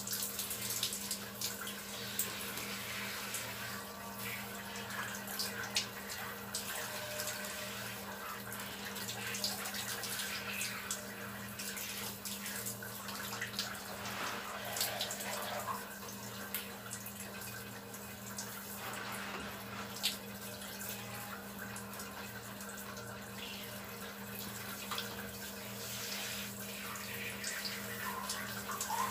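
Water spraying steadily from a handheld shower head and splashing onto skin, a continuous hiss with scattered small splashes and drips. A steady low hum runs underneath.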